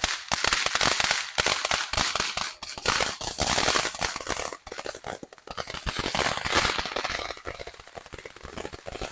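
Brothers "Tag" consumer firework crackling: a dense, rapid run of sharp pops and crackles that thins out and fades over the last couple of seconds.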